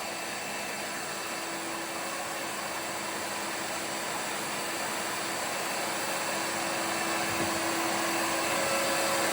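A workshop machine's electric motor running steadily with a rushing, airy noise, growing slowly louder.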